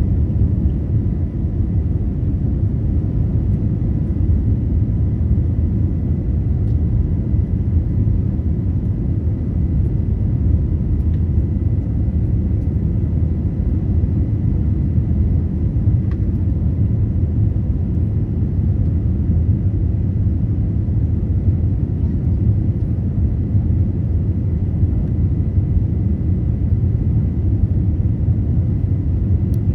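Passenger airliner's jet engines during takeoff: a steady low rumble with a faint, thin high whine over it.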